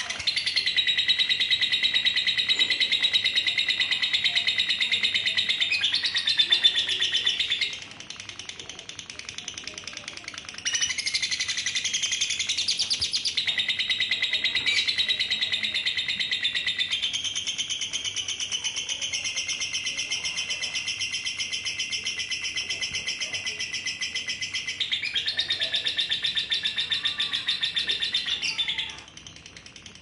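Female lovebird giving its long 'ngekek', a rapid, continuous, high chattering trill held for many seconds at a stretch. It eases off about 8 seconds in, picks up again about 3 seconds later, and breaks off near the end.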